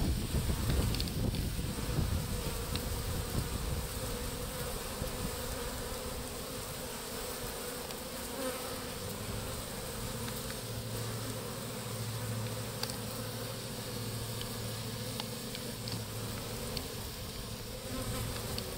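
Swarm of honeybees buzzing steadily as they crowd and fly around a hive entrance hole. A deeper, steady hum joins about halfway through.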